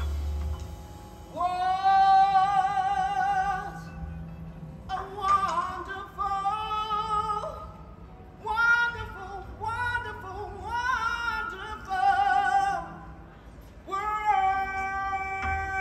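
Female jazz vocalist singing, amplified, in slow phrases of long held notes with a wide vibrato, with short breaks between phrases.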